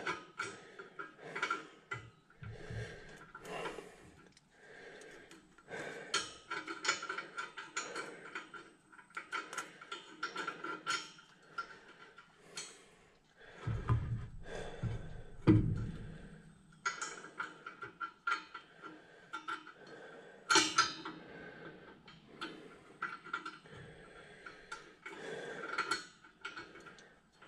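Small metal clicks and clinks of nuts, washers and tools being worked onto the bolts of a no-till drill's mounting bracket, irregular throughout, with two dull knocks about halfway through.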